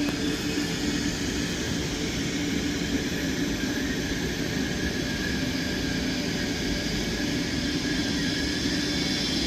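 Electric train running at the station platform: a steady rumble with a low hum and a higher held whine from its motors and blowers.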